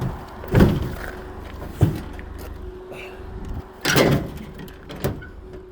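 Four hollow metal bangs and thuds as scrap air-conditioner units are set down and shifted into place. Under them an idling engine runs low and steady.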